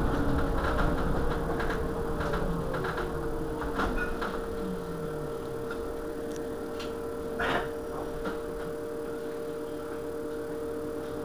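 Irizar ie tram electric bus standing at a stop, with a steady whine from its electrical equipment. In the first five seconds a lower hum falls in pitch and fades. There is a single click about seven and a half seconds in.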